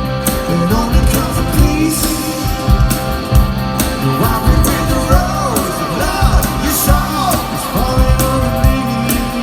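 Live rock band playing loud, with a steady kick-drum beat, electric guitars and a singing voice.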